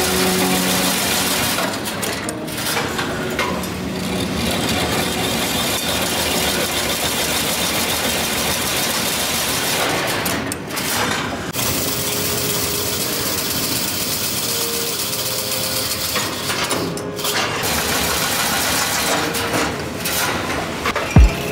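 Automatic chain link fence machine running, a steady mechanical noise from its wire-spiralling and weaving mechanism, with a few brief dips.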